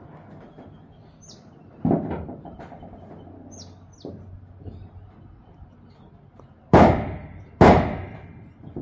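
Three loud bangs from construction work, one about two seconds in and two close together near the end, with a few short, high bird chirps between them.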